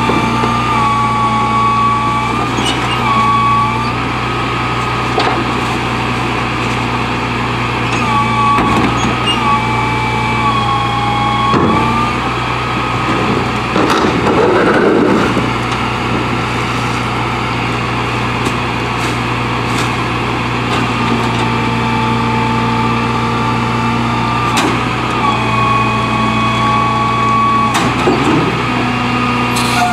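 Rear-loader garbage truck idling with a steady engine hum and a hydraulic whine that shifts pitch several times as the packer runs. About halfway through, a rush of trash tumbles from a tipped cart into the hopper, with a few knocks of the cart against the truck.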